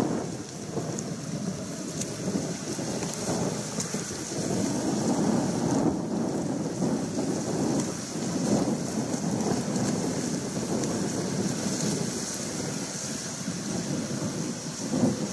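Wind buffeting the camera's microphone: an uneven, gusting rumble with a steady hiss above it.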